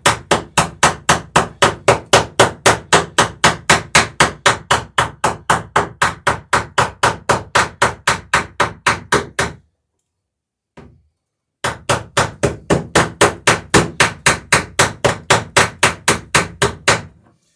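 Hammer driving rivets through the overlapping planks of a wooden dory against a backing block: two runs of quick, even blows, about four a second, with a pause of about two seconds between them.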